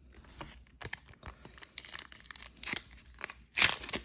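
A trading-card pack wrapper crinkling and tearing as it is opened, a run of quick crackles with a louder rustling burst near the end.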